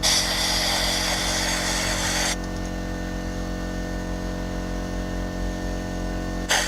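A pressurized spray hissing into the engine's spark plug tubes to clear oil and grime: one burst of a little over two seconds, then another starting near the end, over a steady electrical hum.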